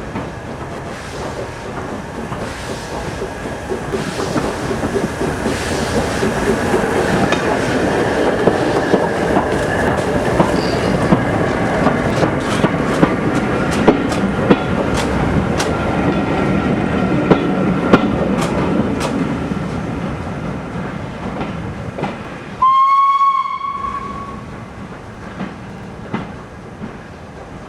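Steam locomotive Tornado, a three-cylinder A1 Pacific running light engine, passing: the running noise builds, with sharp wheel clicks over the rail joints at its loudest, then fades as it moves away. A short whistle sounds a little over twenty seconds in.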